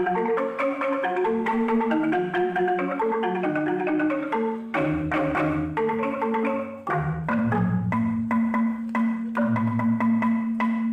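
Balinese bamboo gamelan, jegog and tingklik bamboo xylophones, playing a fast run of quick struck notes. Deep bass bamboo notes come in about halfway, along with sharp ceng-ceng cymbal clashes.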